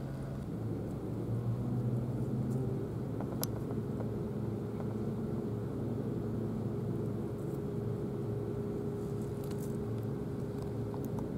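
Engine running steadily, a low hum with a few faint clicks over it.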